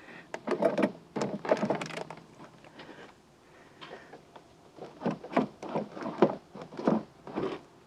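Irregular clunks, knocks and scraping as a heavy car starting battery is worked up and out of its tray.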